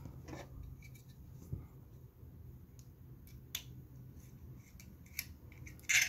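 A few scattered small clicks and taps from handling a small aluminium drive enclosure and a tiny screwdriver, the loudest near the end, over a faint low hum.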